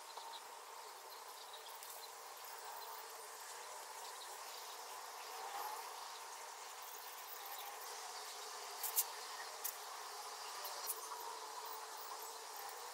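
Faint, steady chirring of insects, with a few light clicks about two-thirds of the way through.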